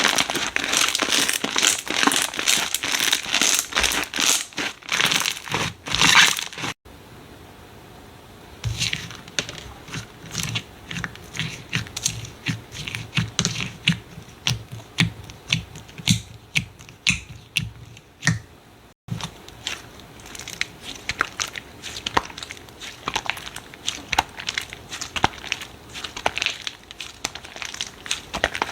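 Slime being pressed and worked by hand. First comes dense crinkling crackle, then runs of separate small sticky clicks and pops with soft low thumps. The sound changes abruptly twice.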